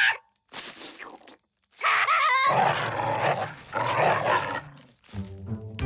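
Cartoon character voices growling and snarling like dogs, straining as they tug at a bone. Music comes in near the end.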